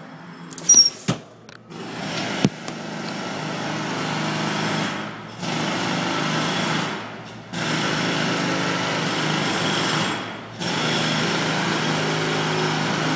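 Jackhammer hammering outside in four runs of a few seconds each, with short pauses between them. A few sharp knocks come about a second in, just before the hammering starts.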